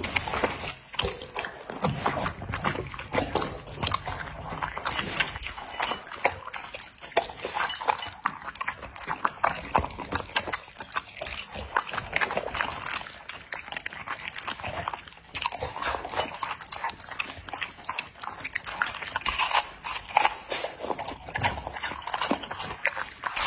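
Samoyed dogs eating from ceramic bowls close to the microphone: steady chewing and crunching, with many irregular clicks of teeth and tongue against the bowl.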